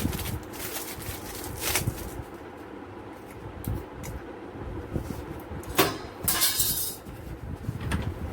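Thin stamped-metal motherboard I/O shield being pressed into a PC cabinet's rear opening: sharp metal clicks and knocks, the loudest about six seconds in, followed by a brief scraping rattle.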